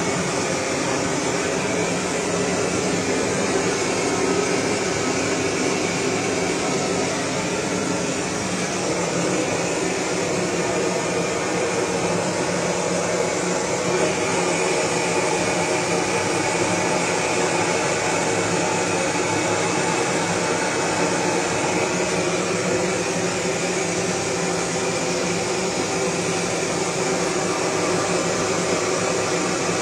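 Handheld gas blowtorch burning steadily as it is played over a hanging carcass to singe off the hair.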